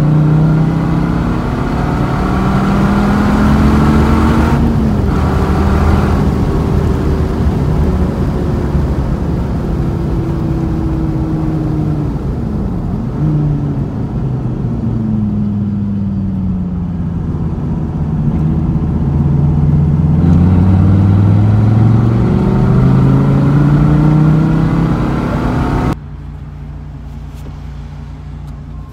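Dodge Viper's V10 engine under hard driving on a track: revs rising and falling in pitch as the car accelerates, shifts and slows through the course. Near the end the sound drops suddenly to a quieter, steady low running.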